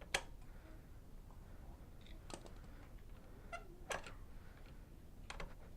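A handful of short, sharp clicks and taps, about five, the loudest right at the start and another about four seconds in: small parts and hand tools being handled while a motorcycle foot peg is fitted.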